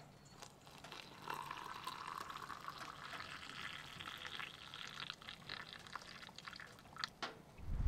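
Liquid poured from a stainless steel pot into a steel mug. The pour starts about a second in and its pitch rises steadily as the mug fills, followed by a few sharp clicks near the end.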